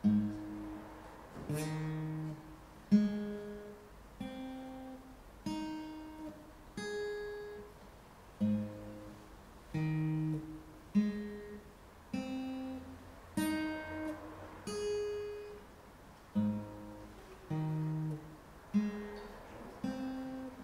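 Acoustic guitar played one pluck at a time, a single string or chord roughly every second. Each note is left to ring and fade before the next.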